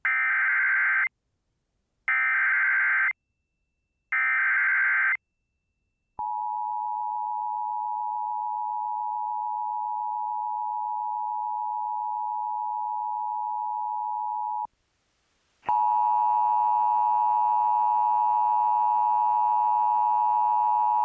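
Emergency Alert System SAME header: three short bursts of warbling digital data, about a second apart. Then a plain steady alert tone for about eight seconds. After a second's pause, a harsher, buzzier EAS attention signal from a Sage EAS Endec starts and holds steady.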